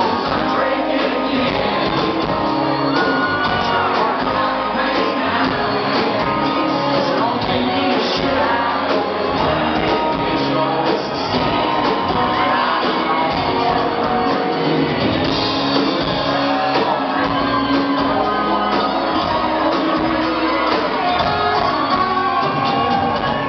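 Live band music: a man singing over strummed acoustic guitar and keyboards.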